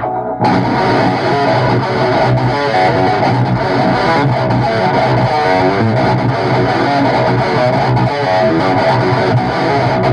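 Heavy, distorted electric guitar riff, played by a band, kicks in abruptly about half a second in and carries on loudly.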